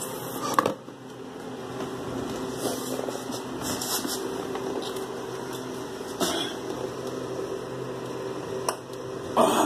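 A steady electrical hum, with a few knocks and rustles of cables and equipment being handled: one about half a second in, another around six seconds, and a cluster near the end.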